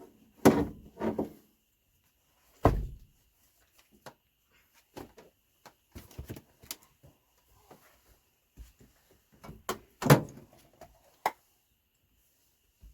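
A few loud clunks and thuds with scattered lighter clicks and taps: tools and metal parts handled while seat belt anchor bolts are taken out inside the van.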